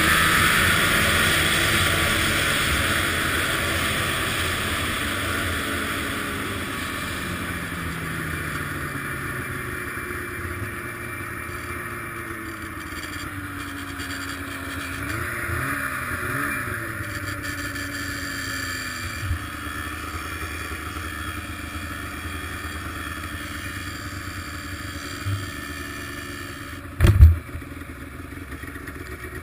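Arctic Cat ZR 800 two-stroke snowmobile engine running, its pitch falling as the sled slows, then running steadily at lower speed with a brief rise and fall in revs. A loud thump sounds near the end.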